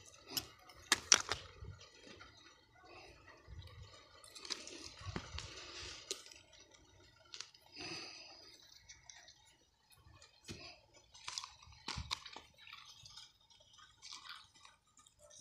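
Irregular crunches, clicks and scrapes of close handling: a plastic cup, tweezers and movement over dry, gritty soil, with a few sharp clicks about a second in and again near the end.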